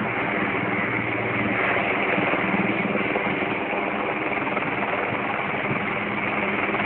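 Helicopter hovering, its engine and rotors making a steady, unbroken drone with a low hum.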